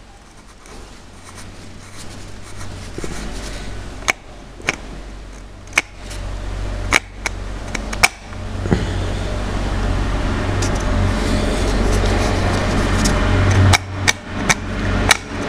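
Scattered sharp metallic clicks and taps as a small bolt is worked against a cast metal tractor housing, over a low hum that grows louder from about six seconds in.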